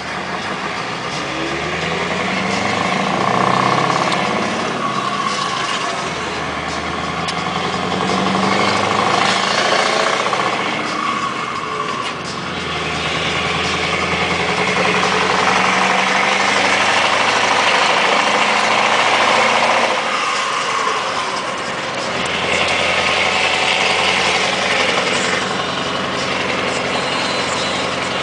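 Scania R580's 16-litre V8 diesel with straight-through pipes pulling a full load, heard from inside the cab. The engine note climbs in pitch and loudness, then drops back, about three times as it works up through the gears.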